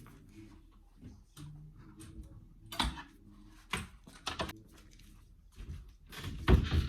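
Scattered light clicks and knocks of things being handled in a small room, with one louder thump near the end.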